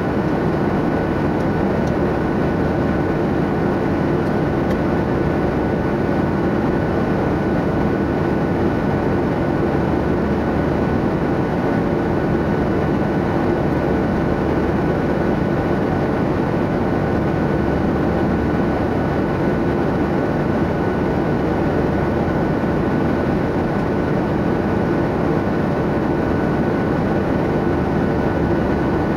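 Steady airliner cabin noise in flight: a constant drone of jet engines and airflow, with a thin steady whine above it.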